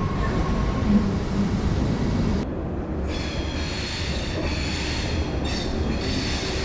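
Passenger train running with a steady low rumble. About two and a half seconds in it changes abruptly to a high-pitched metallic squeal with several steady tones over the rumble.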